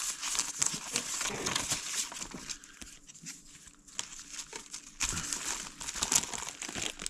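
Packaging crinkling and rustling as a mail package is unwrapped by hand. The handling comes in irregular bursts, with a quieter spell in the middle.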